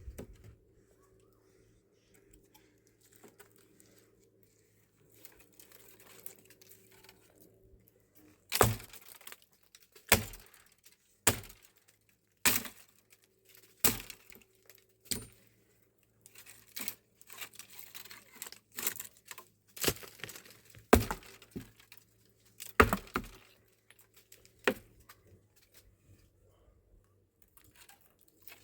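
Dry firewood being broken up: about a dozen sharp cracks, roughly one a second, starting after a quiet stretch of several seconds.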